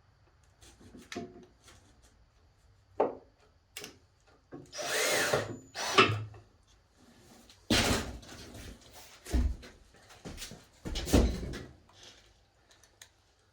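A power drill driving screws to fasten the press down onto the table, in several short runs of about a second or less, with clicks and knocks of handling between them.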